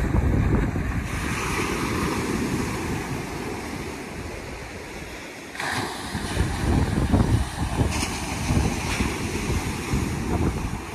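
Wind gusting against the microphone over the hiss of surf breaking on a sandy beach. The wind eases in the middle, then the surf swells up suddenly about halfway through and again a little later.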